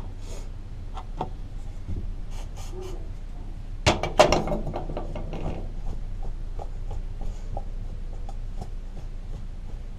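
Scattered light clicks and knocks of small objects being handled and set down, with a louder clatter of a few knocks about four seconds in.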